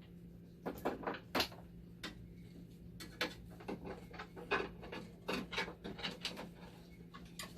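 Irregular small clicks, taps and light clatter of hands handling parts and fasteners inside a dialysis machine during reassembly, over a steady low hum.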